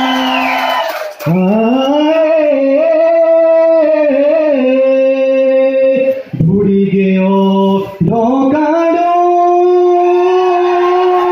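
A voice singing a Pahari nati folk song through a microphone, in long drawn-out, gliding phrases with short breaks about a second in and again around six and eight seconds.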